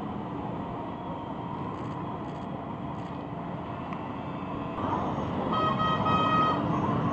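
Many Harley-Davidson V-twin motorcycles rumbling past together in a slow parade, the sound getting louder about five seconds in. A vehicle horn honks for about a second near the end.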